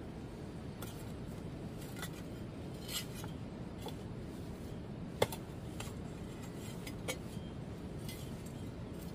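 Scattered light clicks and clinks of small hard objects knocking together, with one sharper knock about five seconds in, over a steady low background rumble.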